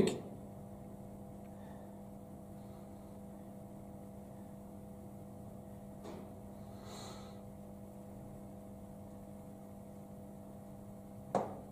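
Faint steady low hum of a boiler plant room, with a soft breath-like rush about six to seven seconds in and a brief short sound near the end.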